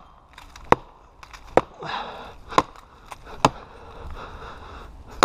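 Estwing axe chopping into a dead, barkless standing tree: a series of sharp knocks about a second apart, five in all. The notch is deep and the rotted trunk is close to falling.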